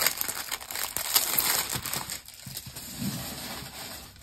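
Plastic bag crinkling and rustling as a rolled canvas is slid out of it, fading after about two seconds.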